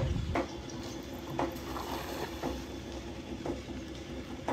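Motor of a pump draining a flooded paddy field, running with a steady low hum and a sharp tick about once a second.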